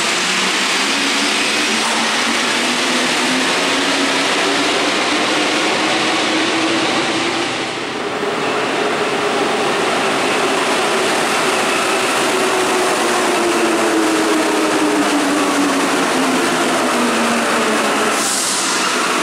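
Paris Metro trains running on electric traction. First a train pulls out with a motor whine rising in pitch over its running noise. About eight seconds in the sound cuts to another train arriving behind platform screen doors, its whine falling in pitch as it brakes, with a short hiss near the end.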